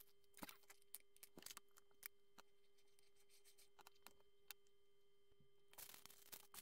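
Faint, scattered clicks of small plastic Lego pieces being handled and pressed together while a minifigure is assembled, over a steady faint hum. Near the end the clicking thickens into a brief rattle and rustle.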